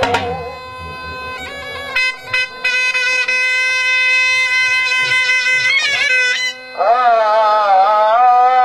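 Shehnai playing long held notes and slides over a steady drone, with dhol strokes underneath.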